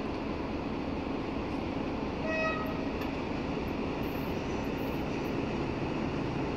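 Class 82 diesel-hydraulic locomotive running steadily as its train approaches, with one short horn toot about two seconds in.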